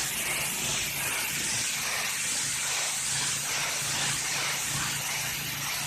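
High-pressure water spray from a pressure washer blasting concrete, a steady hiss, with the pressure washer's engine humming low and steady underneath.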